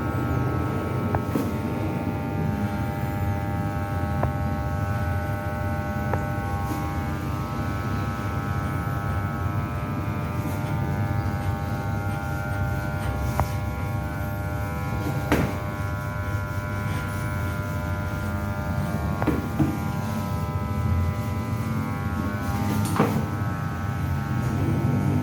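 Electric hair clipper buzzing steadily, with a few short clicks along the way.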